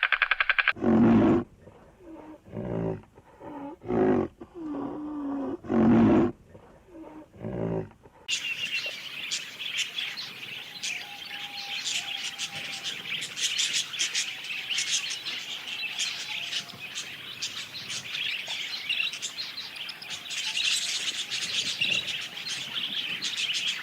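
A series of about six short, low animal calls, then, from about eight seconds in, many small birds chirping together in a dense, continuous chorus that cuts off abruptly at the end.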